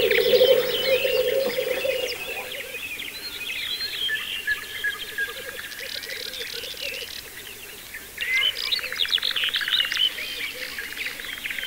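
Birdsong: small birds chirping and trilling high over a low, bubbling cooing, the rookooing of black grouse. A louder, rapid trill starts about two-thirds of the way through.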